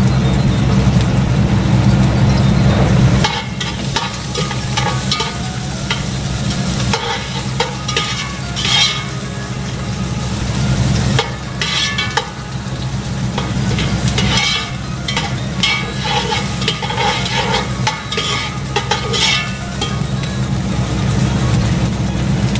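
A metal skimmer clinking, knocking and scraping against cooking pots over a steady sizzling hiss from the stove. A loud steady low hum fills the first three seconds and cuts off suddenly.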